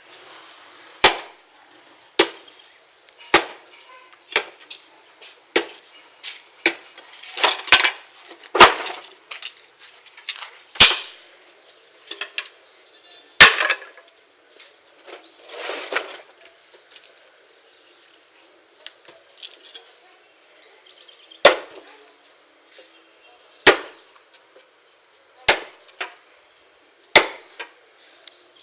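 Hand tool striking wood in repeated sharp blows, about one a second at first, then a pause of several seconds, then a blow every couple of seconds.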